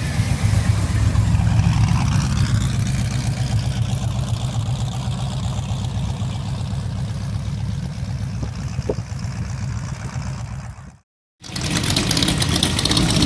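A V8 trike engine rumbles deeply as the trike pulls away and rides off, easing off a little towards the end. After a brief gap of silence about 11 seconds in, another V8 trike's engine runs, with a brighter, raspier tone.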